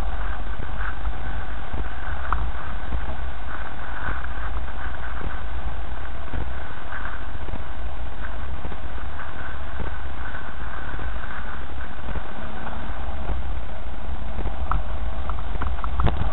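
Steady low rumble of a car driving slowly over a rutted dirt track, picked up by a camera mounted on the car, with many small knocks and rattles from the bumps and a sharper knock near the end.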